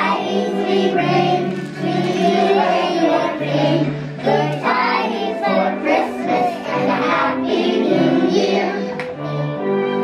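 A group of young children singing together over a music accompaniment.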